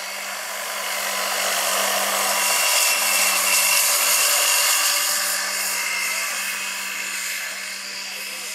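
Large electric scale model helicopter, a Vario SA-341/342 Gazelle with a 2.36 m main rotor, flying past low: a steady electric motor and rotor whine with a rushing hiss. It grows louder to a peak about three to four seconds in, then fades somewhat as the model moves away.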